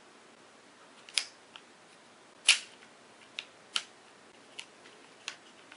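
Sharp clicks from the quick-release plate and lock lever of a Sunpak Ultra 4STM pistol-grip tripod head as the lever is squeezed and the metal plate is worked free. About seven separate clicks, the loudest about two and a half seconds in.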